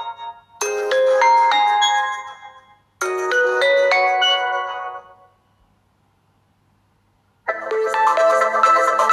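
Oppo A16 ringtones playing. A short run of quick, rising chiming notes repeats twice and dies away about five seconds in. After about two seconds of silence, a different ringtone starts with fuller, sustained chords.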